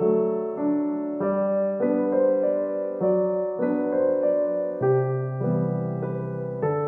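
Background piano music: a gentle piano tune, its notes and chords changing about every half second.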